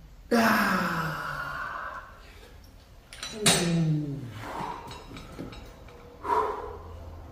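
A man groaning with strain as he finishes a set of dumbbell lateral raises: a long groan falling in pitch, a second shorter falling groan, and a short heavy exhale near the end.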